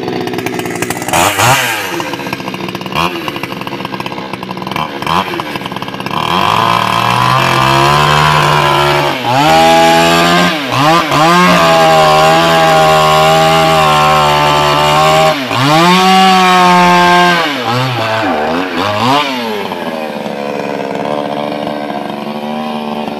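Two-stroke petrol chainsaw idling with three quick throttle blips, then held at high revs while cutting through a log, the engine dipping briefly a few times before recovering. It drops back to a steady idle near the end.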